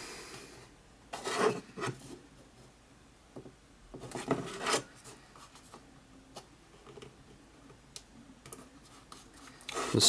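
3D-printed plastic parts being pressed together and slid by hand against each other and the wooden bench: short scraping rubs about a second in and again around four seconds in, with a few light clicks between.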